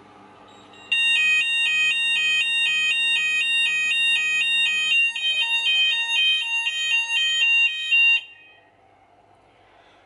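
Fire alarm sounder on a Hochiki ESP addressable system, set off by a smoke detector test, sounding a loud, fast two-tone alternating alarm tone. It starts about a second in and cuts off abruptly about eight seconds in.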